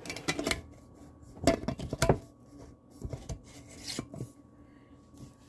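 Kitchen utensils and dishes clinking and knocking against each other and the counter, in four short clusters of knocks. The loudest come about one and a half to two seconds in.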